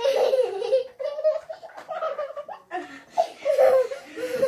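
Young children laughing hard in repeated short bursts, their voices high-pitched.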